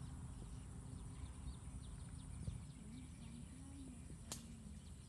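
Faint open-field ambience: a low steady rumble of wind on the microphone, with faint short chirps of small birds repeating through the first few seconds. A single sharp click a little over four seconds in.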